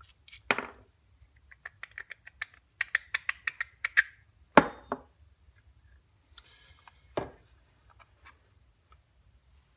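Connecting rod, rod cap and bearing shells being handled and wiped on a workbench: a quick run of light clicks in the first half and a few sharper knocks, the loudest about halfway through.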